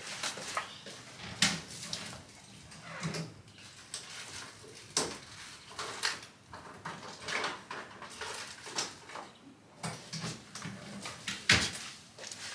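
Scattered sharp knocks and clicks of cupboard doors, drawers and small items being handled while someone rummages for a small bottle.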